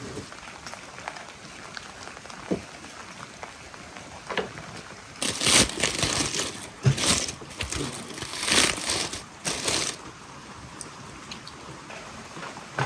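Aluminium foil wrapping being pulled open and crumpled by hand: a run of loud, rustling crinkles lasting about five seconds in the middle, with a few faint ticks before it.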